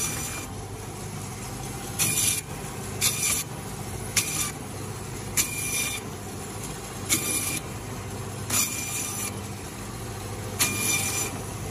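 Meat bandsaw running with a steady motor hum. A series of short, high rasping bursts, one every one to two seconds, comes as the blade cuts through pieces of beef.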